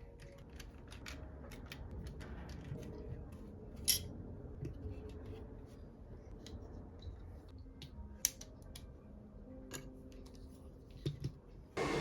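Scattered sharp clicks and taps from small hard plastic parts of an Xbox One controller being handled and worked on, with a few louder snaps among them. Just before the end an air ventilator fan switches on, a sudden steady rush of air.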